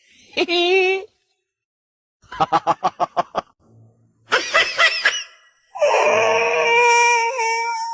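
Meme sound clips: a short wavering cry, then a burst of rapid laughter of about eight quick beats, then another short cry and a long held scream near the end.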